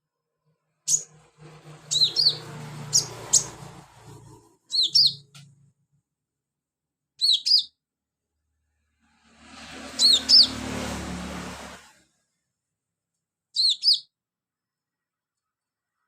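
Sunbird singing: short, sharp, high-pitched chirps with quick up-and-down glides, given in clusters of two or three notes every few seconds. A dull, lower noise sits under the calls early on and again around the middle.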